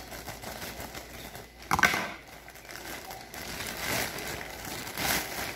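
Grey plastic mailer bag crinkling as it is handled and pulled open by hand, with one sharp, louder crackle about a second and a half in.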